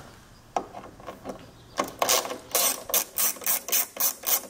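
Small hand ratchet clicking in a fast, even run of strokes, about four a second, as it backs out a T15 Torx screw; a few lighter ticks come before the clicking starts about two seconds in.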